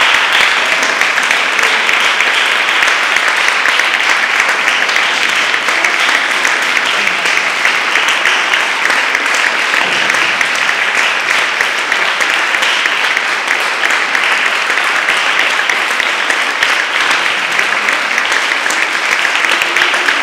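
Audience applauding, a dense steady clapping that goes on without a break.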